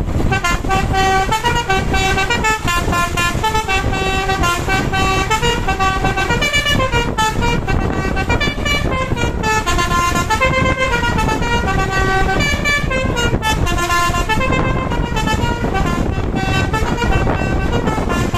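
Bus telolet horn, a multi-trumpet 'basuri' air horn, playing a tune: clear notes held for a fraction of a second each, stepping up and down in pitch, over the steady rumble of the bus.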